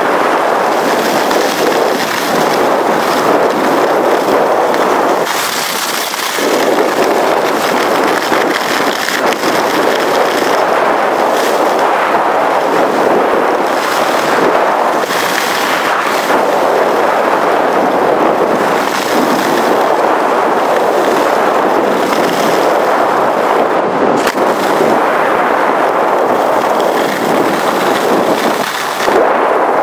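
Skis rushing and scraping over hard-packed groomed snow on a downhill run, with wind buffeting the microphone and crackling through the noise. It eases briefly about five seconds in and again near the end.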